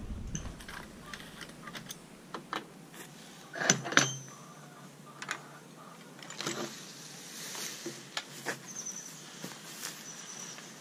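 Scattered light clicks, rattles and knocks, with two louder knocks about four seconds in, and a few short high chirps of small birds.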